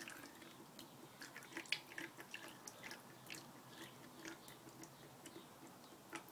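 Faint, irregular small clicks and drips: engine oil dripping from the open drain of a Coleman 5 hp four-stroke outboard into a funnel, the last of the drain.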